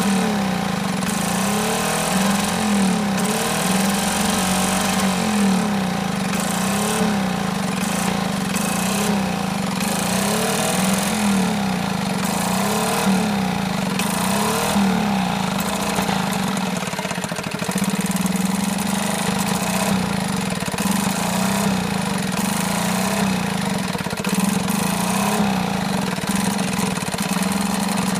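Small 2 hp outboard motor running and surging, its speed rising and falling over and over, about once a second. The surge persists although the carburettor has been rebuilt, the fuel tank cleaned and the ignition checked.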